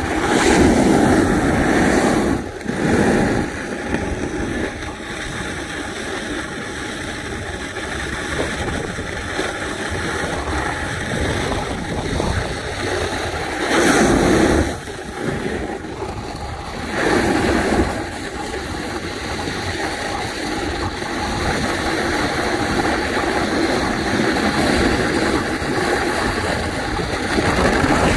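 Snowboard sliding down a groomed run of frozen spring snow, a steady scraping hiss that swells louder a few times as the board turns.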